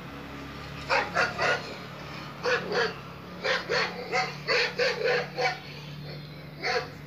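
Recorded Doberman barking played through a phone's small speaker: three barks about a second in, two more, a quick run of about seven, then a single bark near the end.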